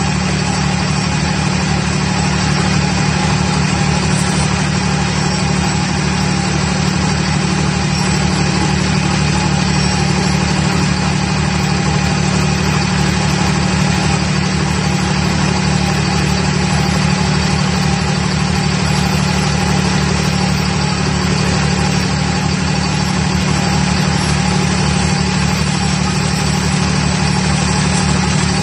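Vibratory pile-driving hammer running, a loud, steady drone with a strong low hum that does not change.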